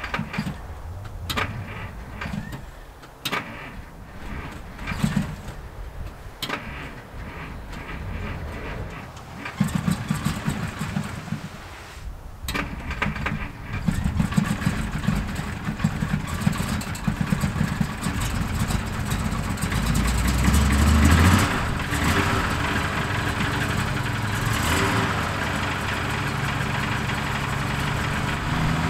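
A 1949 Frazer's flathead six is cold-started. A few knocks and clunks come first. The starter then cranks the engine over, pauses briefly and cranks again, and the engine catches about fourteen seconds in. It revs up once around twenty seconds in and settles into a steady idle.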